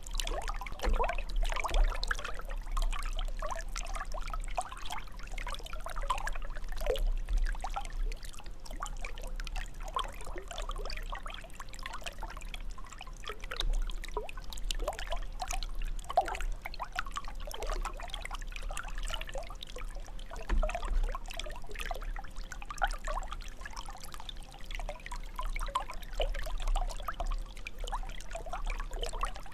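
A fountain's water jet splashing and trickling steadily.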